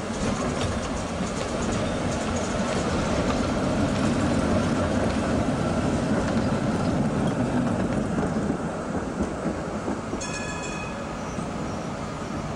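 Street trams passing close by on the track: a steady rumble of wheels and motors that swells as a tram goes past, with a brief high-pitched ringing tone about ten seconds in.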